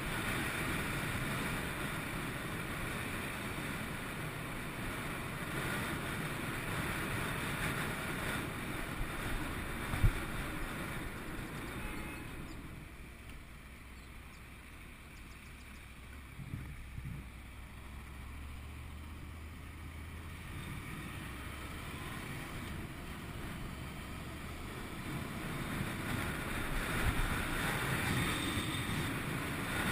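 Wind rushing over a helmet-mounted action camera on a 2011 Honda VFR800 VTEC motorcycle in city traffic, with the bike's V4 engine under it. It dies down for a while in the middle as the bike slows, with one sharp knock about ten seconds in, and rises again near the end as the bike picks up speed.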